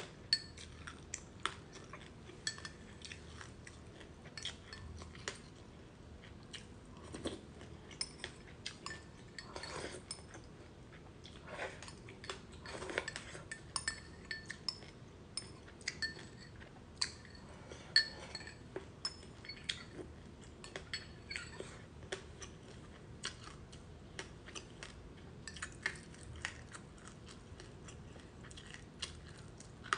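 Metal spoon clinking and scraping against a glass bowl many times, with close-up chewing of crunchy sesame seeds and passionfruit in between.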